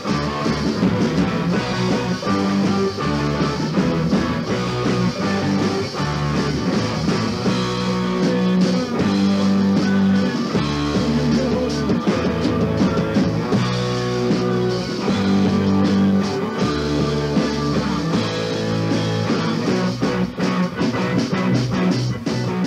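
Rock band playing a prog-rock passage with electric guitar, bass guitar, keyboards and drums, in a 1981 garage recording.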